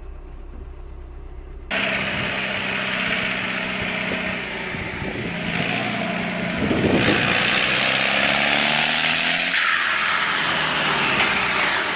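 Engine of a pulling tractor running hard at high revs, cutting in abruptly about two seconds in after a low hum, its pitch wavering up and down and getting louder from about halfway through.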